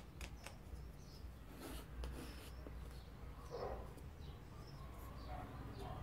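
Faint scraping and light clicks of a wooden sculpting tool cutting and trimming plasticine along the edge of a melamine board, over a low steady hum.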